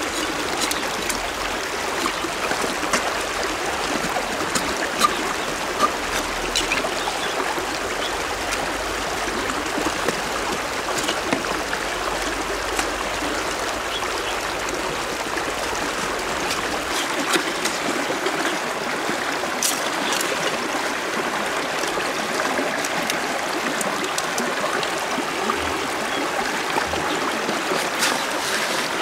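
Shallow river water trickling steadily over gravel, with scattered small clicks and scrapes from a knife working at a freshwater clam shell.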